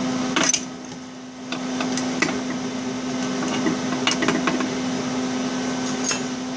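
Light clinks and knocks of a steel fuel rail and its locking clamp being handled and repositioned on a steel welding table, over a steady low electrical hum.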